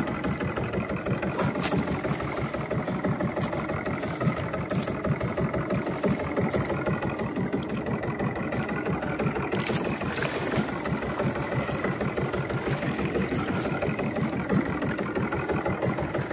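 Boat engine running steadily at low revs, a fast even low throb, with a couple of brief sharp clicks.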